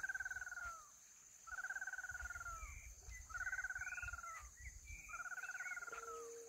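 An animal calling: four pulsed, trilling calls about a second long, repeated roughly every one and three-quarter seconds, each dropping slightly in pitch at its end. Faint higher chirps come in the middle, over a steady high whine.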